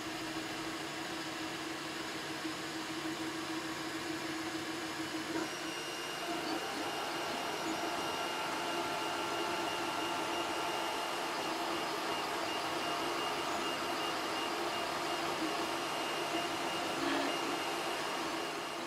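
Anycubic i3 Mega FDM 3D printer printing: its stepper motors give a steady whine in held tones, which change pitch about five seconds in and again near the end, over a steady hiss.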